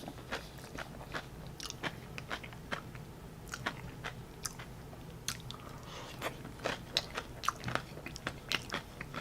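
A person biting and chewing crunchy nacho chips close to the microphone: a run of irregular, crisp crunches, a couple every second.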